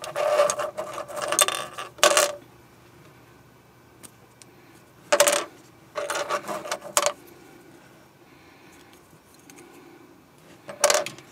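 Freshly printed PLA keyrings being prised off a Prusa i3 MK3S steel print sheet by hand, with hard plastic clicking and scraping against the metal sheet. The clicks come in short clusters: a run in the first couple of seconds, more around the middle, and a brief one near the end.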